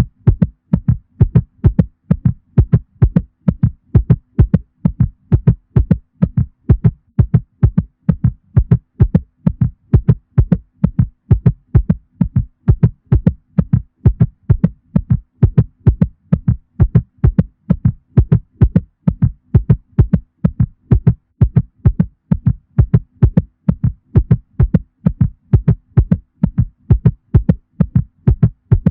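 Heartbeat sound effect: steady, regular lub-dub double beats, low and thudding.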